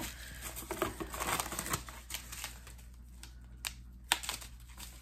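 Packaging rustling and crinkling as items are handled and pulled from a subscription box, with a few sharp clicks and taps, the sharpest about three and a half and four seconds in.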